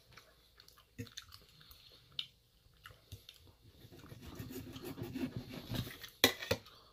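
Soft chewing and scattered small clicks, then a steak knife sawing through steak in a stainless steel bowl from about four seconds in, getting louder, ending in two sharp clinks of metal cutlery on the metal bowl.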